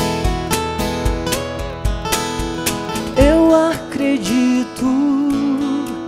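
Music: an acoustic guitar strummed in a steady rhythm over low thumps about twice a second; about three seconds in, a voice comes in singing a held, wavering melody line over the guitar.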